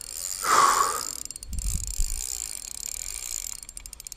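Spinning reel winding with its drag clicking as a hooked pike fights on the line. A short, loud rush of noise comes about half a second in.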